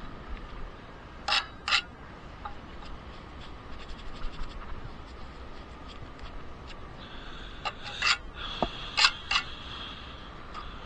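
Bricklaying work: a trowel scraping mortar, with sharp clinks of steel on brick, a pair a little over a second in and another cluster around eight to nine seconds.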